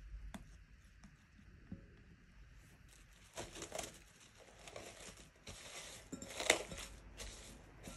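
Plastic cling wrap crinkling as it is pulled out and stretched over a glass mixing bowl, in a string of crackles with one sharp loud crackle near the end. Before it, a few faint taps of a spatula against the glass bowl.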